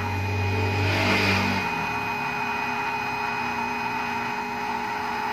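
Small 12-volt DC water pump running steadily with a steady motor whine during a timed test run from the timer board. A low hum drops away about a second and a half in.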